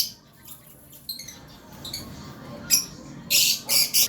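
Lovebirds chirping: short shrill calls, a few soft ones in the first half, then a loud cluster of three or four calls in the last second and a half.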